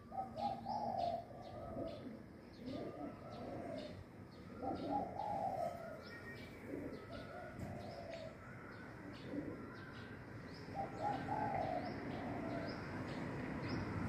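A dove cooing in repeated low phrases, one every two seconds or so, while small birds chirp quickly and high in the background. A low rumble builds near the end.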